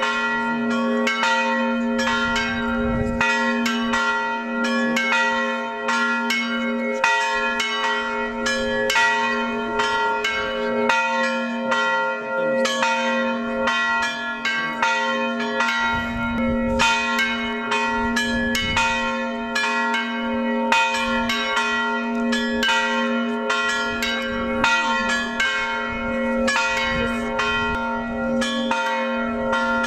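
Several church bells rung in a fast, continuous peal: quick irregular strokes, several a second, over the lingering hum of a deep bell.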